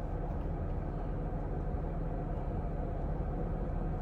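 Steady low rumble and hum of a car heard from inside its cabin.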